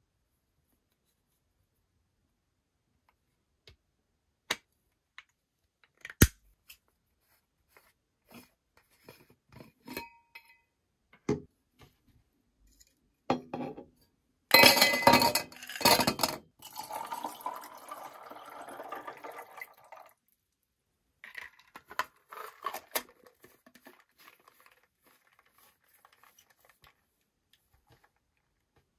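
A stainless steel kids' water bottle and its plastic flip-up straw lid being handled: scattered clicks and taps, a cluster of loud knocks and clinks about halfway through, then a few seconds of softer rubbing noise and more clicks.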